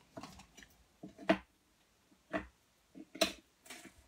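A handful of separate clicks and knocks as craft supplies are handled on a cutting mat, with the plastic case of an ink pad being opened. The loudest knock is about a second in.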